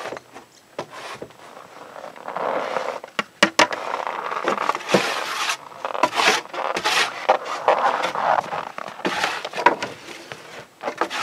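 Scraping and knocking as gear is handled and shifted inside a wooden box on a sled: irregular scrapes of about a second each, with a few sharp knocks among them.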